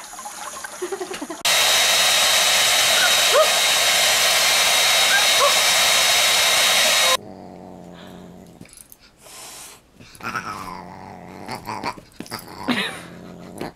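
Tap water running briefly, then a handheld hair dryer blowing loudly and steadily for about five seconds before it cuts off suddenly. After it, a dog makes short growling and whining calls that rise and fall in pitch as it tussles with a cat.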